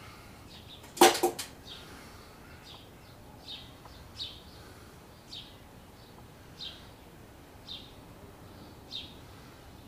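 A bird chirps repeatedly, one short high falling chirp about every second. About a second in comes a sharp clatter of three quick knocks, the loudest sound.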